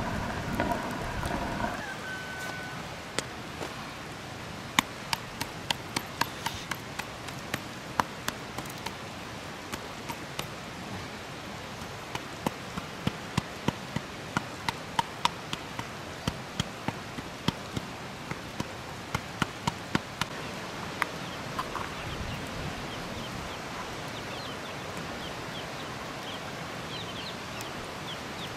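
A run of sharp clicks and knocks, irregular at first and then about three a second, stopping about 21 seconds in. Short bird chirps follow near the end.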